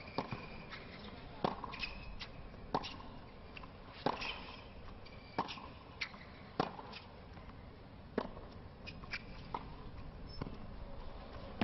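Tennis rally on a hard court: a sharp racquet-on-ball hit a little over a second apart, back and forth, with a few short shoe squeaks between the strokes.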